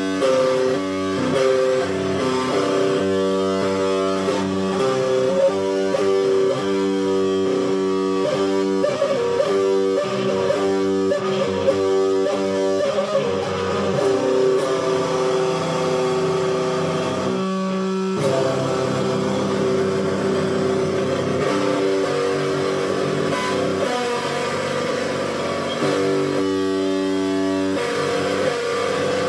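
Electric guitar playing a rock song: chords chopped in a steady rhythm at first, then held longer, with a short break about 18 seconds in.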